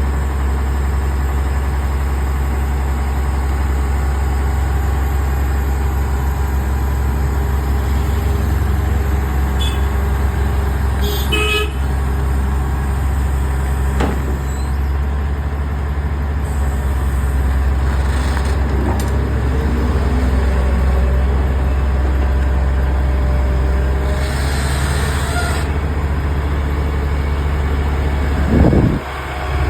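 Heavy diesel engine running steadily, with a short horn toot and a brief louder noise near the end.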